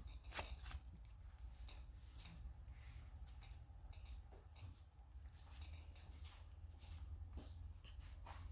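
Near silence: room tone with a faint steady high-pitched whine and a low hum, and a few faint soft clicks.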